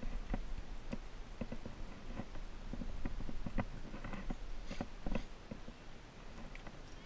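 Irregular light clicks, taps and scuffs of a belayer handling the climbing rope and gear, over a steady low rumble on the microphone.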